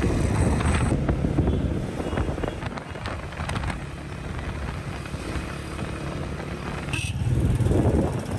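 A vehicle running on the move, a steady low rumble with wind on the microphone, swelling louder for a moment near the end.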